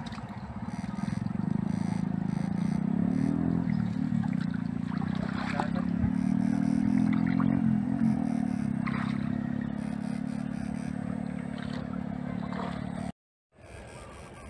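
A steady mechanical drone that swells about a second in, its pitch wavering up and down a couple of times, then cuts off abruptly near the end.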